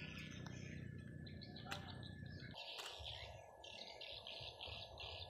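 Faint bird chirping: scattered short calls at first, then an even run of quick chirps, about four a second, in the second half.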